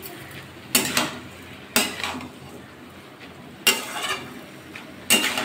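Flat metal spatula scraping and knocking against a metal kadai while stirring shredded ash gourd with mung dal and spices. There are four sharp strokes, one to two seconds apart.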